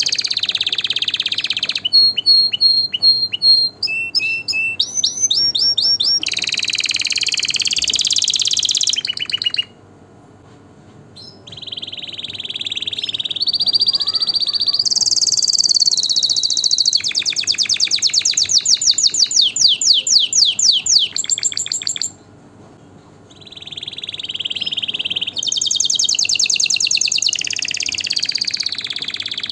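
Domestic canary singing: long phrases of rapid trills and quickly repeated high notes, broken by two short pauses.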